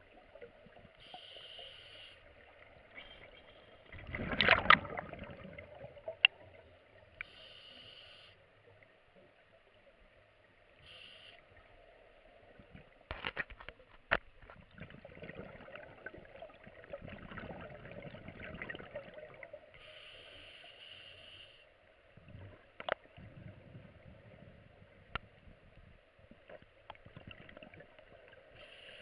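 Scuba diver breathing underwater through a full-face mask regulator: short hisses of inhalation every few seconds and gurgling rushes of exhaled bubbles, the loudest about four seconds in, with a few sharp clicks.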